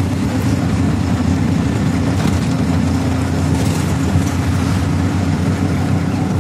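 Auto rickshaw engine running steadily as the rickshaw drives along, heard from inside the open passenger cab as a loud low hum with road and traffic noise.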